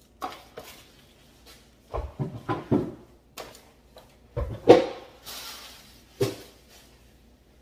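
Tissue paper rustling and crinkling as a picture frame is unwrapped from its packaging, with a string of knocks from the frame and box being handled. The loudest knock comes about halfway through.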